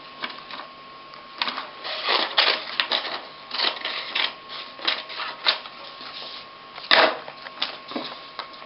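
A paper stencil being trimmed down with scissors: irregular crisp snips and paper rustling, over a faint steady hum.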